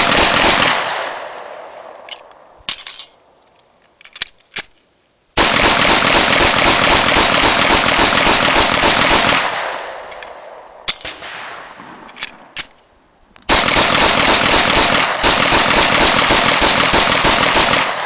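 Grand Power K100 semi-automatic pistol fired in fast, unbroken strings of 9 mm L7A1 Hinterberger rounds during a 1,000-round reliability test. One string ends about a second in, another runs for about four seconds from the middle, and a third starts near the end. Between strings the sound dies away slowly and a few sharp clicks are heard.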